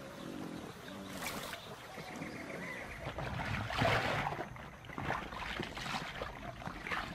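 Water splashing and sloshing as Australian pelicans dip and plunge their bills into the water to feed. The loudest splash comes about four seconds in, as a bill goes under the surface, with smaller splashes about a second in and near the end.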